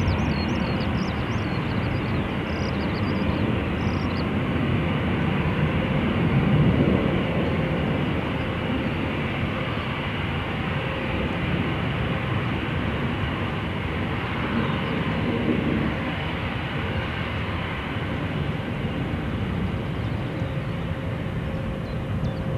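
Airbus A340-300 taxiing, its four CFM56 turbofans running at taxi power: a steady jet whine and rumble with a faint steady tone.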